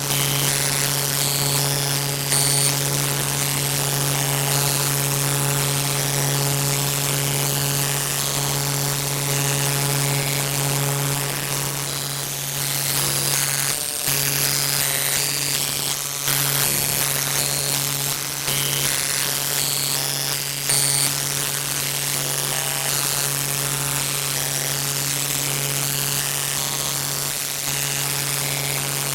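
A steady, loud buzzing drone: a low hum with overtones over a hiss, cutting out briefly twice around the middle.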